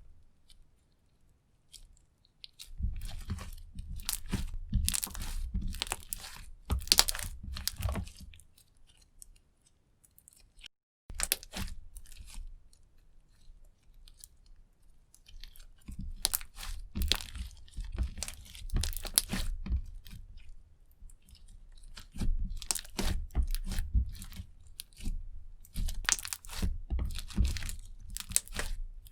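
Clear slime being kneaded and squished by hand, giving sticky crackling clicks and pops in bursts of several seconds with short pauses between them.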